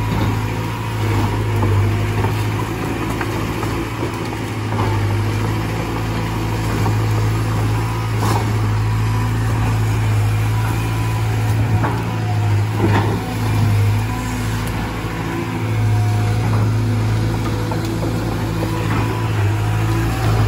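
Caterpillar 320 GC excavator's diesel engine running steadily at working speed, its hum swelling and easing as it digs. A few sharp cracks and knocks stand out, about 8, 12 and 13 seconds in.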